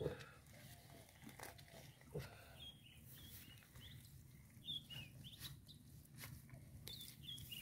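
Faint sounds of bare hands digging in wet mud, with scattered soft clicks and squelches. Small birds chirp now and then in the background.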